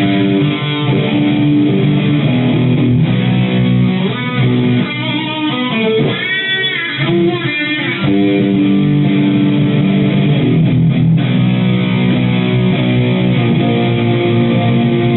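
Electric guitar played through a Synergy preamp's rhythm section and an Axe-Fx III, heard from room speakers through a phone microphone. A phrase with bent, wavering notes in the middle, then sustained held chords.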